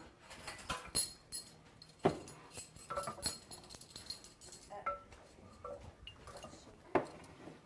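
A spoon clinking and knocking against dishes while tablespoons of oyster sauce are measured out. Separate clinks come every second or so, some ringing briefly, the loudest about two seconds in and near the end.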